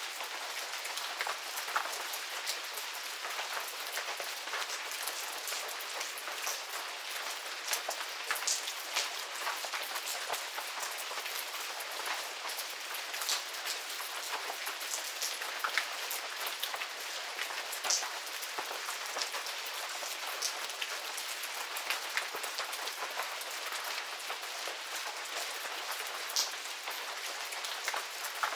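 Steady medium rain falling in a garden: an even hiss of rainfall with many distinct drops pattering sharply close by.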